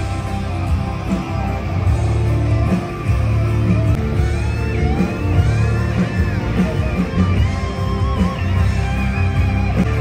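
Live rock band playing: electric guitar over bass and drums, with a lead line bending and gliding in pitch from about four seconds in.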